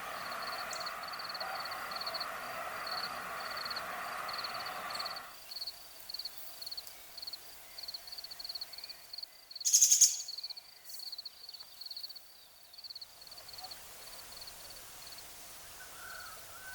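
Rural outdoor ambience with a steady, high-pitched pulsing chirp repeating until near the end. A wider rushing noise under it stops suddenly about five seconds in, and a short, loud hiss comes about ten seconds in.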